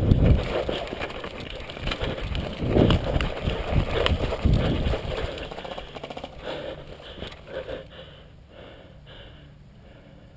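Irregular low thumps and rustling from a player moving with a body-worn GoPro, fading away over the second half to a faint low hum.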